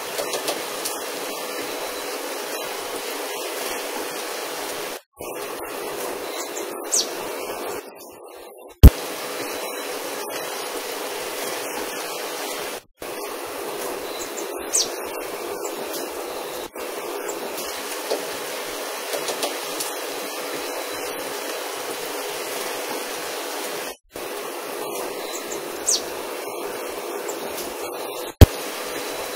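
Heavy rain falling, a steady hiss, with three brief high chirps spread through it. Two sharp, loud clicks stand out as the loudest sounds, and the sound cuts out briefly a few times.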